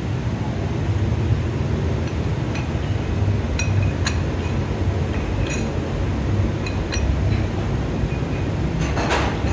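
Light metallic clinks of gym weights, scattered and sharp, over a steady low hum; the clinks come a little way in and bunch together near the end.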